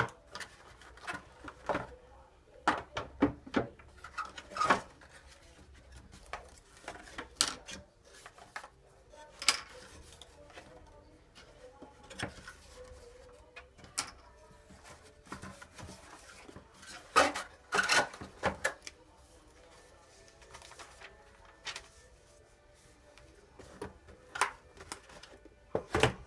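Unboxing handling noises: a cardboard box rustled and opened, and plastic comb attachments and other small parts set down on a wooden table, giving irregular knocks, clicks and rustles. The loudest knocks come in a cluster about two-thirds of the way through and once more near the end.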